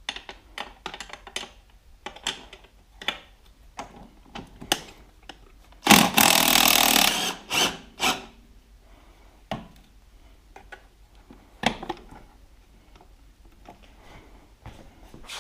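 Tools working on metal parts: scattered clicks and knocks. A power tool runs in one loud burst of about a second near the middle.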